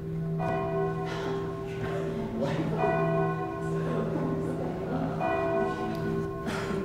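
Bell tones ringing in a sustained chord, sounded three times about two seconds apart: a dramatic bell sting on the film's soundtrack.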